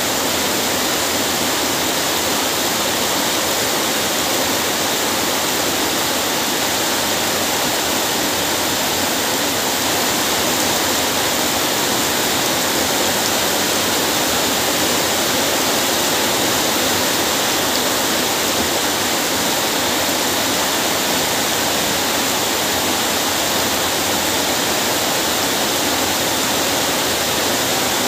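Heavy rain pouring steadily onto flooded ground, splashing into standing water: an even, unbroken hiss.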